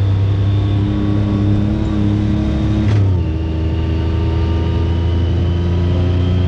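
Side-by-side UTV engine running under way, a steady drone with a strong low hum. About three seconds in its pitch drops sharply, then climbs slowly again.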